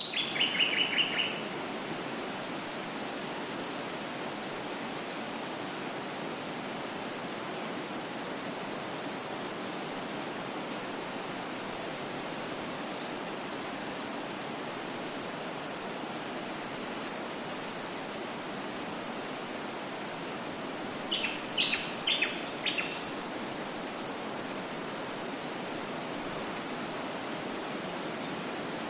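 Outdoor birdsong ambience: a very high, short chirp repeats steadily about one and a half times a second over a constant background hiss, with faint scattered calls. Short louder bursts of bird song come right at the start and again about three quarters of the way through.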